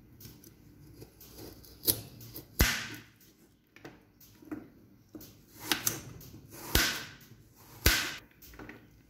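A kitchen knife slicing lengthwise through a raw carrot on a plastic cutting board, each cut ending in a sharp tap of the blade on the board; a handful of irregularly spaced cuts.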